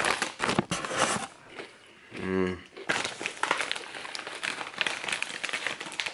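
Foil chip bag crinkling and rustling as it is pulled open and handled, with a hand reaching in for chips. A brief low hum sounds about two seconds in.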